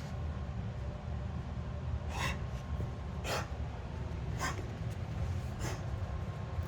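Four short, harsh coughing bursts about a second apart over a steady low rumble: a recently developed cough.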